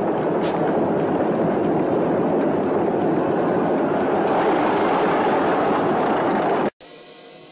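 Chariot race din: galloping horses and rumbling chariot wheels in one loud, dense, steady clatter that cuts off abruptly near the end.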